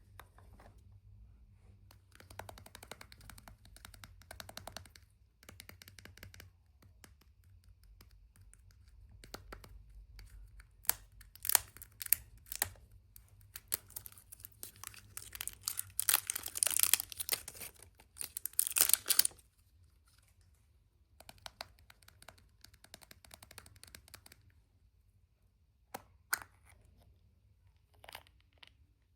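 The wrapping of a surprise egg being torn open and crinkled by hand, in irregular bouts of rustling and crackling with a few sharp snaps. The longest and loudest bout comes about two-thirds of the way through.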